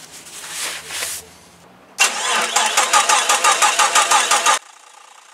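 Jeep Cherokee XJ engine cranked on the starter with the ignition disabled, so it turns over without firing. This is done to bleed air from a new power steering pump. The cranking pulses evenly for about two and a half seconds, then cuts off abruptly, after a brief rubbing of paper towel in the first second.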